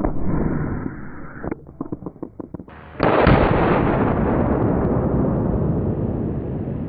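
Two black-powder muzzleloader rifle shots. The first comes at the very start and its boom fades over about a second and a half, followed by a few light clicks. The second, louder shot comes about three seconds in, and its report rolls on and fades slowly.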